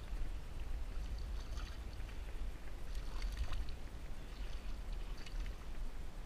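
A hooked fish splashing and thrashing at the water's surface beside a kayak as it is reeled in, in several bursts, over a steady low rumble of wind on the microphone.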